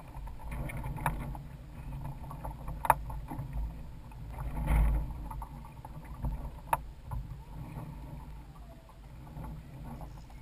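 Water sloshing and lapping against a sailing kayak's hull and outrigger floats, over a low rumble of wind on the microphone, with a few sharp knocks and clicks scattered through, the loudest about three seconds in.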